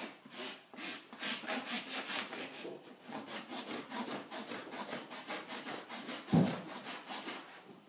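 Farrier's rasp filing a horse's hoof: quick scraping strokes, about three a second. A single louder, deeper sound cuts in about six seconds in.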